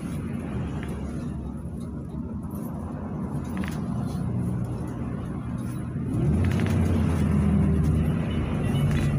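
PAZ-32054 bus's V8 engine and tyre noise heard from inside the cabin. About six seconds in the engine gets louder and rises in pitch as the bus accelerates.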